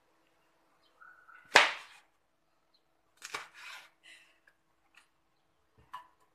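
Cleaver chopping through pineapple onto a plastic cutting board: one sharp chop about a second and a half in, the loudest, then another chop with a short scraping sound around three seconds in, and a light knock near the end.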